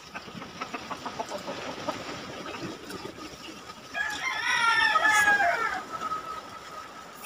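A rooster crows once, a pitched call about two seconds long that starts around four seconds in and falls away at the end. Before it, soft clicks and smacks of hand-eating and chewing.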